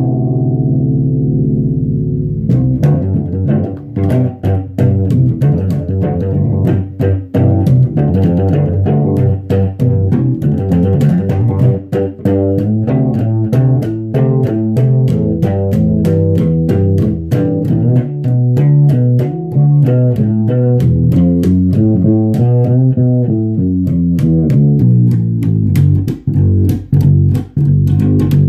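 Solo four-string electric bass strummed and plucked in an improvised line. A chord rings for the first couple of seconds, then a steady run of strummed chords and notes follows, each with a sharp attack.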